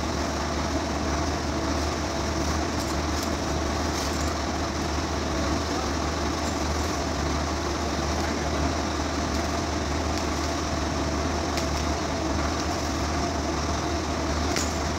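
Steady drone of industrial plant machinery: a low hum with a faint steady whine on top, plus a few faint ticks.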